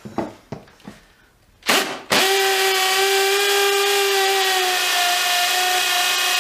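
Makita DTP141Z cordless impact driver running in hammer-drill mode, boring into brick with a DeWalt long masonry bit. A few knocks and a short burst come first, then from about two seconds in a steady, even-pitched whine. The DeWalt bit is making poor headway in the brick.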